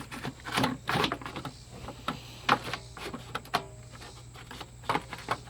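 Irregular knocks and clicks of tools and metal parts being handled, over a steady low hum.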